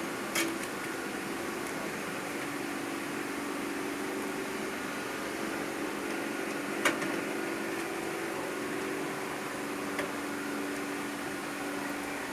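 Steady mechanical hum, like a room fan or air conditioner. Three sharp clicks of metal parts being handled break in: one just after the start, a louder one about seven seconds in, and a faint one near ten seconds.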